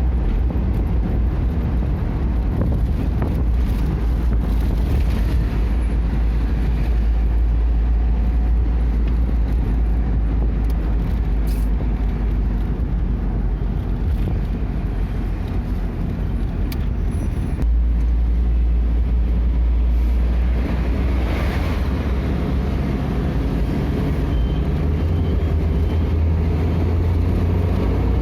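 Steady low rumble of a vehicle on the move, road and engine noise, stepping up slightly about two-thirds of the way through.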